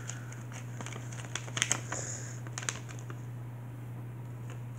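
A sheet of paper being folded and creased by hand: scattered crinkles and crackles, busiest around the middle, over a steady low hum.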